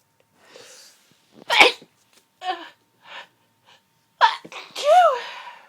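A woman's hay-fever sneeze about a second and a half in, after a breathy intake, followed by a few short sniffs. Near the end comes another sharp breath and a drawn-out voiced 'ah' as a second sneeze builds and is lost.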